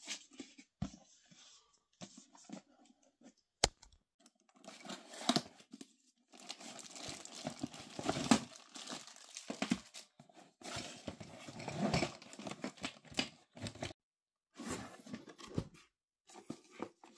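Cardboard packaging and plastic bags being handled: card inserts scraping and sliding, and plastic wrapping crinkling, in irregular rustling bursts that are busiest in the middle, with one sharp click a few seconds in.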